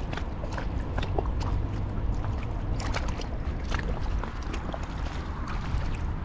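Low, steady rumble of wind buffeting the microphone, with many short, sharp ticks and chirps scattered irregularly over it.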